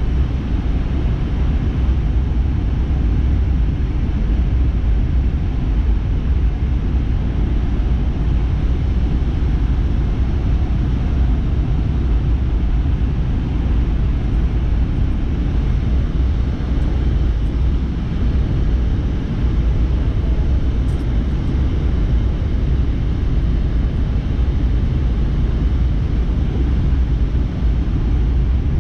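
Steady cabin noise inside a Boeing 717 on final approach: a constant low rumble of airflow and engines through the fuselage, with no change in pitch.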